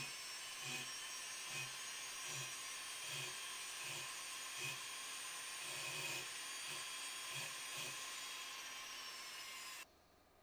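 Handheld rotary grinder running at a steady high whine as its bit grinds metal off the back of a clock gear, with a low pulsing roughly once a second as the bit bears on the gear. The metal is taken off to balance the gear. The sound cuts off suddenly near the end.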